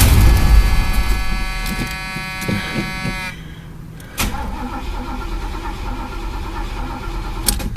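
Chevy El Camino's carbureted engine cranked by the starter on starting fluid, running loudly for about three seconds before cutting off abruptly; about a second later there is a sharp click followed by a quieter steady noise. The engine is not getting fuel from the tank.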